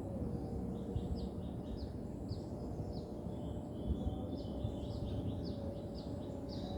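Small birds chirping: short, high, downward-sweeping chirps repeated about twice a second, over a steady low outdoor rumble.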